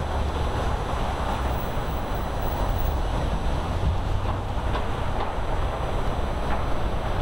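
Steady city street ambience: a constant low rumble of traffic with a hiss of passing vehicles.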